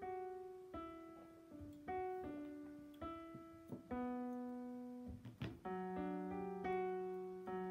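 Slow background piano music: single notes and soft chords struck one after another, each left to ring and fade.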